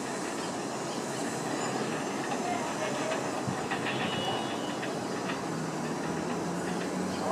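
R160B Siemens subway train pulling away on an elevated-grade track, a steady rumble and hiss with scattered wheel clacks over the switches. A faint low tone rises slowly over the last couple of seconds.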